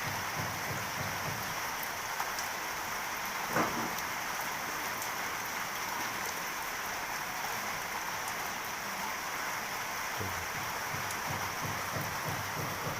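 Heavy rain falling steadily, with one short knock about three and a half seconds in.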